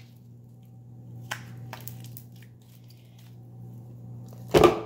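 Soft slime squeezed by hand and pressed into a container of white slime, with a couple of faint clicks and a loud squish near the end, over a steady low hum.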